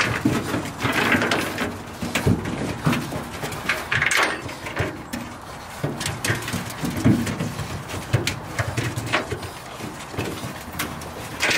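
Puppies playing in a pickup's ribbed metal truck bed: paws and claws scrabbling and knocking on the metal, with short puppy vocal sounds mixed in.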